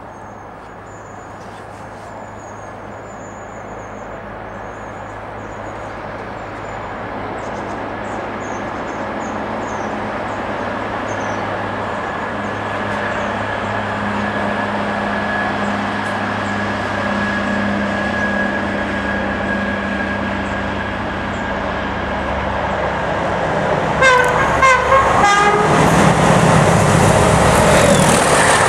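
A Class 31 diesel locomotive's English Electric V12 engine working hard under load, growing steadily louder as the train approaches. About 24 seconds in, the loco's horns sound briefly, and then it passes close by with a loud rush.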